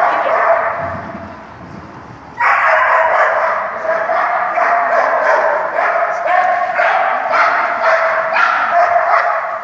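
A dog barking and yipping excitedly in quick succession, quietening briefly about a second in and starting up loudly again at about two and a half seconds.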